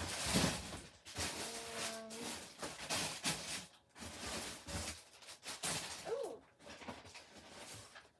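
Rustling and crinkling of packaging as toys are handled and unpacked, in repeated surges. A short steady tone sounds about two seconds in, and a brief wavering tone a little after six seconds.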